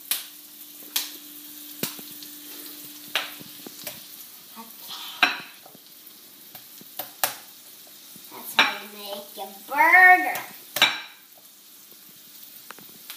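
Hands squishing and kneading raw ground meat in a bowl for burger patties, with irregular soft knocks of hands and bowl. About ten seconds in, a short rising-and-falling whine is the loudest sound.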